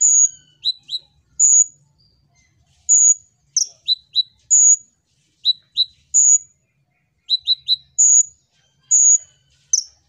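Male Van Hasselt's sunbird (kolibri ninja) singing its lure song. Sharp, very high chirps come about every second and a half, with quick pairs and trios of lower down-slurred chips between them.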